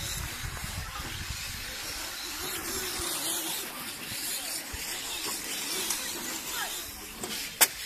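Electric 1:10 scale RC rally car driving across an artificial court surface: a steady hiss of tyres and motor. A single sharp click near the end.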